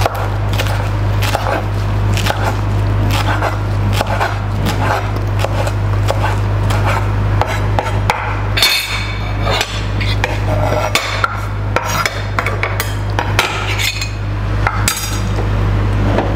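Kitchen knife chopping ugwu leaves on a wooden cutting board: a run of quick, uneven knocks of the blade against the board, over a steady low hum.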